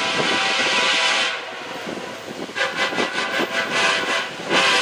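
Nathan K5HLL five-chime air horn on a Norfolk Southern SD70ACe locomotive. It holds a long chord that cuts off about a second in, then after a pause plays a rapid string of short toots and ends with another blast.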